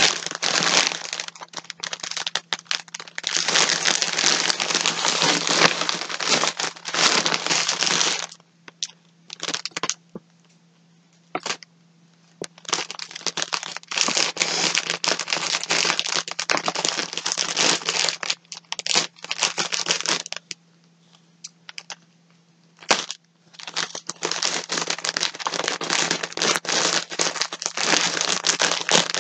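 Plastic yarn packaging crinkling and rustling as it is handled and unwrapped, in long stretches. It stops for a few seconds about eight seconds in and again about twenty seconds in.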